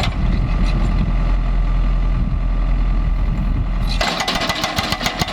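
Heavy diesel machinery running steadily. About four seconds in, a powered breaker starts hammering in a rapid, even series of blows, about seven a second, breaking up the concrete of a pipe culvert.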